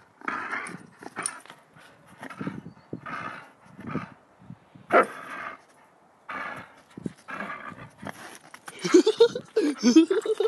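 Dog vocalising in short bursts while tugging at a plush toy. Wavering pitched vocal sounds pile up in the last second or two.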